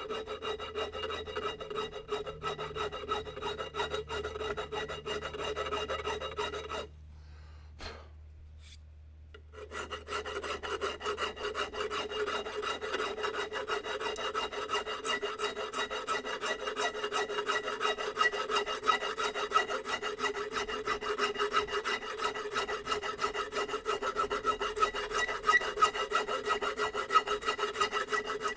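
Hand file scraping back and forth across the solder-filled muzzle end of side-by-side shotgun barrels, dressing the solder flush with the steel. Fast, even strokes with a metallic ring; they stop for about two seconds some seven seconds in, then resume a little louder.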